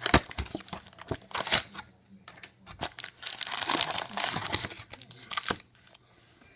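A cardboard trading-card box being opened by hand and its stack of foil-wrapped packs pulled out, with tearing, crinkling and rustling in short bursts. The crinkling is busiest from about three to four and a half seconds in, then dies down.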